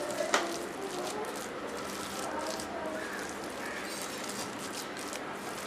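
Hands mixing minced chicken with gram flour and spices in a bowl, making a run of soft, wet clicks and pats.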